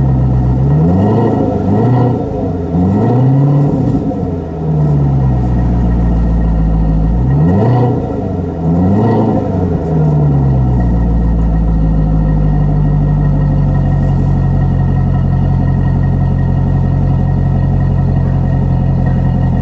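Chevrolet Corvette C7 Z51's 6.2-litre V8 through a Flowmaster performance exhaust, blipped three times in quick succession, then twice more about eight seconds in, before settling to a steady idle for the second half.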